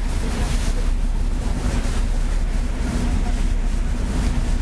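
Wind buffeting the microphone over the steady low hum of the Sakurajima ferry's engines and the rush of water churned white along the hull.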